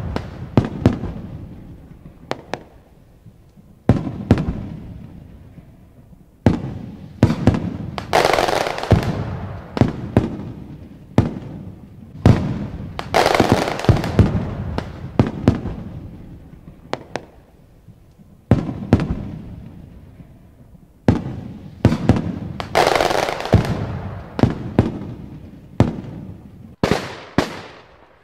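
Aerial fireworks shells bursting one after another in a display. Sharp bangs come every second or so, each with an echoing tail, and a few longer noisy stretches lie between them.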